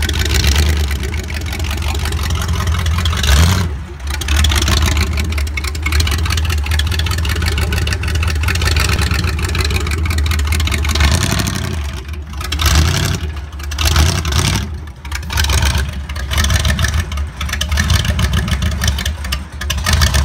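V8 engine of a homemade ride-on tractor running with a steady low rumble. In the second half the throttle is blipped, the engine rising and falling in short revs about once a second.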